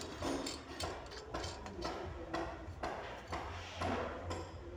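Gate-light parts clicking and rubbing as the top piece is twisted onto the lamp body: a string of irregular clicks, about two a second.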